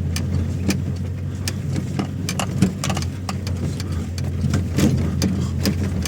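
Strong wind buffeting the microphone with a steady low rumble, while tent fabric flaps and snaps in irregular sharp cracks.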